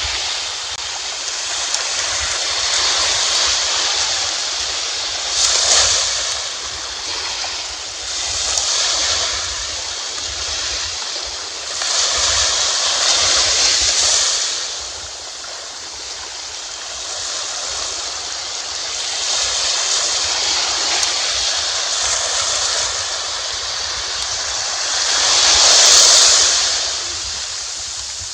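Waves washing onto a shore in slow swells, with a steady low rumble of wind on the microphone underneath. The loudest surges come about 5 seconds in, around 13 seconds, and near the end.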